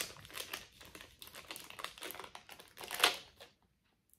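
Costume jewelry being handled: a rapid run of small clicks and rustles as the pieces knock together. It stops abruptly near the end.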